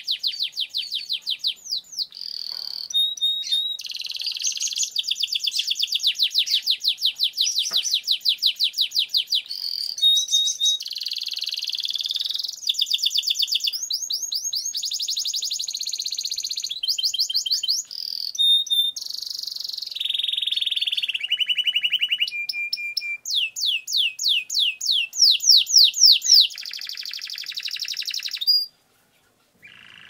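Domestic canary singing a long, nearly unbroken song of rapid rolling trills ("ngerol panjang", long rolls), switching pitch and speed from phrase to phrase. The song cuts off abruptly about a second before the end.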